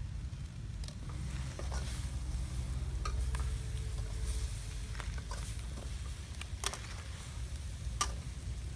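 Eel pieces sizzling in a steel wok while a metal spatula stirs and scrapes them, with scattered sharp clinks of the spatula on the pan. A low steady rumble runs underneath.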